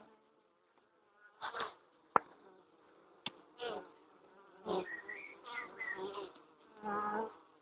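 Honeybees buzzing at a wild colony nesting in a hollow tree trunk. About five times single bees pass close with short, louder buzzes, over a faint steady hum. There are two sharp clicks in the first half.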